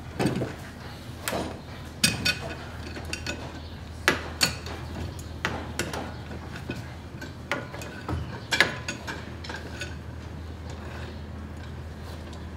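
Irregular clicks and knocks of steel clamps and hand tools being set and tightened against an oak hull plank on wooden frames, a few sharper knocks among lighter clinks.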